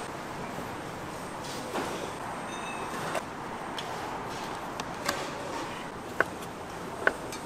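Steady background noise of a busy market food stall, with four or five sharp knocks and clicks spread through it, the clearest in the second half.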